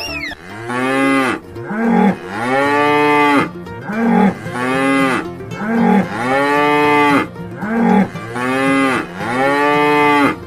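Cow mooing again and again in a steady rhythm, a short moo followed by a longer one, each call rising and then falling in pitch.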